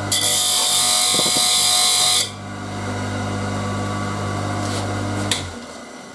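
Saw blade sharpening machine's motor running with a steady hum. For the first two seconds its grinding wheel grinds a tooth of a circular saw blade with a loud, high hiss. The hum carries on until a click about five seconds in, then stops.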